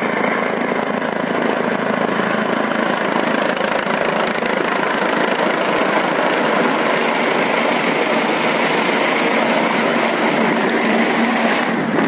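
Helicopter coming in to land close by: steady, loud rotor and engine noise.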